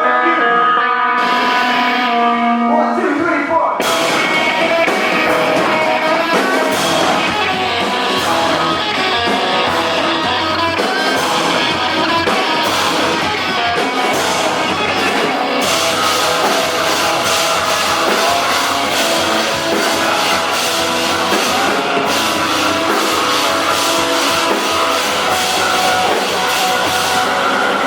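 Live punk rock band playing: a lone guitar plays ringing single notes, then about four seconds in the drums and the full band come in loud and carry on.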